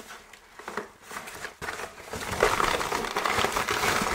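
A mailing package crinkling and rustling as it is torn open and rummaged through by hand, getting louder and busier about one and a half seconds in.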